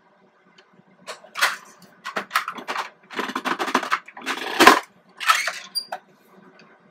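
Williams Sonoma lever-press vegetable chopper dicing yellow squash: several short crunching strokes as the squash is forced through the blade grid, the loudest ending in a hard knock about two-thirds of the way through.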